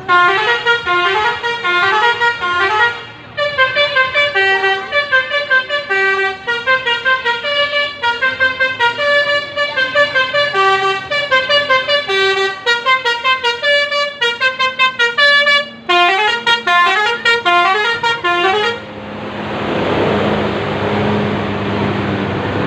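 Telolet multi-tone bus horn playing a quick melody of short, changing notes for about eighteen seconds, with two brief breaks. It then cuts off, and a steady rushing noise with a low hum follows.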